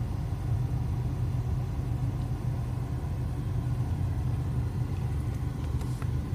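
A vehicle engine idling steadily, a low, even rumble heard from inside the cab.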